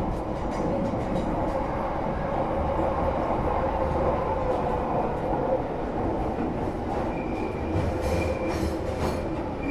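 Interior of a London Underground tube train running between stations: a steady dense rumble and roar with an even hum. About seven seconds in, a thin high wheel squeal joins, with a few sharp clicks from the track.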